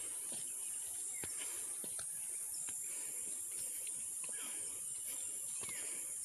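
Forest ambience: a steady high-pitched insect drone, with a few short bird chirps and soft footsteps on a dirt trail.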